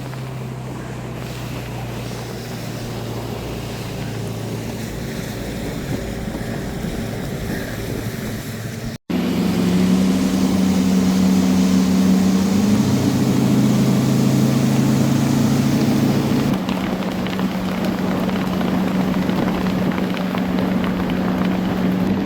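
Four Winns motorboat's engine running steadily, with wind on the microphone. About nine seconds in the sound cuts, and the engine is then louder and higher-pitched, rising briefly before settling back.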